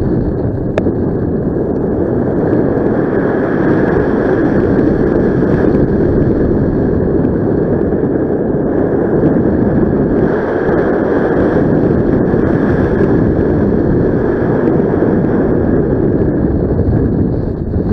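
Steady, loud wind noise from airflow rushing over the microphone in paragliding flight.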